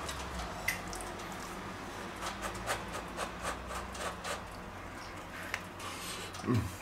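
Small crackly clicks and rustles of a toasted, grill-pressed wrap being handled on a plate and bitten, over a low steady hum, with a brief murmur from the eater near the end.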